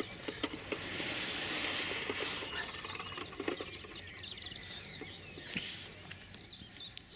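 Small birds chirping now and then, with a rush of hissing noise about a second in that lasts a second or two, and scattered light clicks and knocks of handling.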